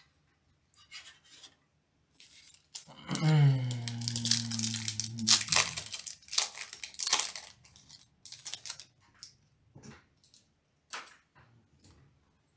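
A foil trading-card booster pack wrapper being torn open and crinkled, densest from about three to seven seconds in. Through the middle of it a man makes a low hum for about two seconds. A few light clicks and taps follow near the end.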